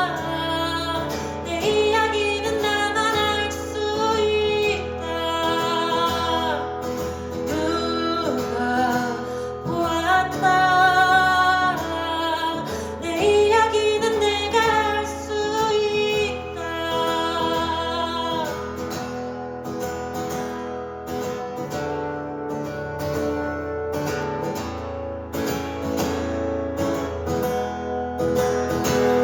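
Female voice singing over strummed acoustic guitar in a live acoustic performance; the singing stops about two-thirds of the way through, leaving the guitar playing on.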